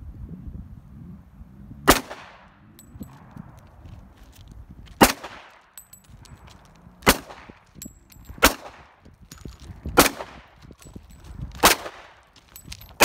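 Semi-automatic handgun fired in slow, deliberate single shots: six sharp reports at uneven gaps of one and a half to three seconds, each trailing off in echo, with a seventh shot right at the end.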